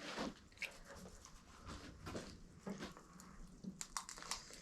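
Large knife cutting into a possum carcass: faint, scattered scrapes and clicks.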